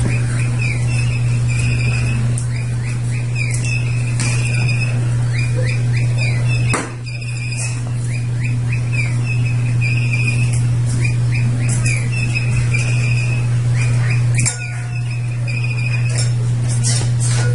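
Electronic bird chirping from a toy bird, a recorded call sequence that repeats about every eight seconds over a steady low hum.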